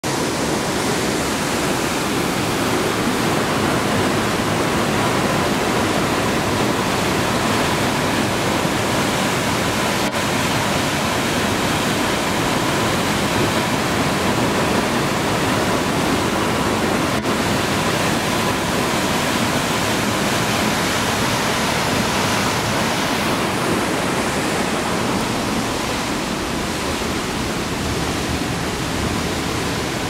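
Upper tier of the Tatzelwurm Waterfall pouring down a rock face into its gorge: a steady, unbroken rush of falling water.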